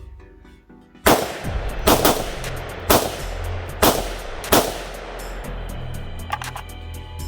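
Six semi-automatic rifle shots from an AR-47 firing 7.62x39 rounds, spaced roughly a second apart, each with a short echoing tail. The rounds feed from a 6.5 Grendel magazine and all six cycle without a failure.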